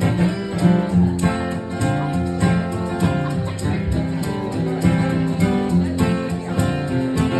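Instrumental break in a live folk-country song: strummed acoustic guitar carrying a steady rhythm, with no singing.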